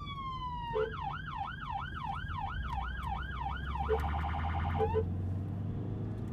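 Police vehicle siren sounding: a falling tone, then a yelp rising and falling about two to three times a second, switching to a faster warble about four seconds in before cutting off, over a low, steady engine hum.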